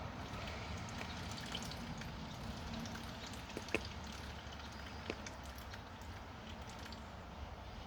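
A duck dabbling its bill in a shallow muddy puddle: small wet splashes, drips and slurps, with two sharper ticks in the middle.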